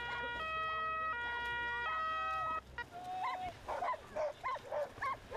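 A two-tone siren alternating between a high and a low pitch about every three-quarters of a second, cutting off a little under three seconds in. Then a dog barks rapidly, about three barks a second, the first bark drawn out.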